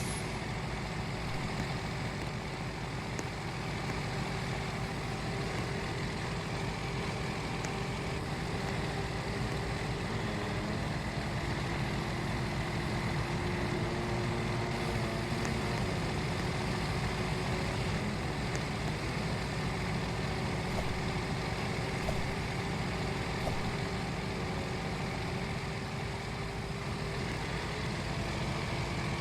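Steady low engine rumble of a running vehicle, unchanging throughout, with a faint constant hum over it.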